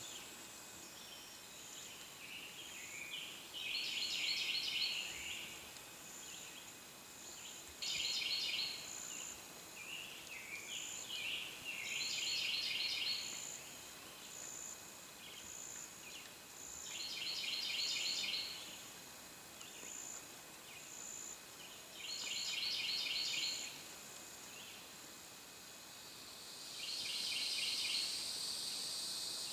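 A songbird singing the same quick, trilled phrase over and over, about every four to five seconds, with softer calls in between. Insects chirp steadily at a high pitch underneath.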